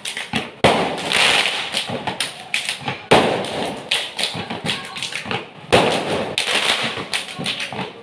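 A step dance team beating out a rhythm with stamping feet and slapping hands on concrete: a quick run of sharp hits, with big accented hits about every two and a half seconds.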